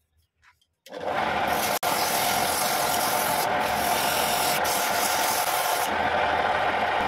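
Homemade wood lathe starting up about a second in and running steadily, with a hand-held turning tool scraping against the spinning wooden lid. The scraping hiss breaks off briefly twice and stops about six seconds in, leaving the lathe running on its own.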